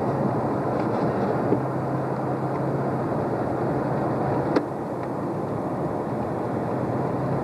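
Inside a moving car in the rain: a steady engine drone with the hiss of tyres on the wet road and rain, and a single sharp click about four and a half seconds in.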